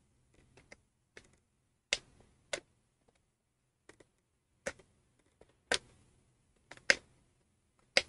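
Fingernail picking and scratching at the corner of the protective film on a handheld battery tester's plastic screen: scattered sharp clicks and ticks at irregular spacing, the film a little difficult to lift.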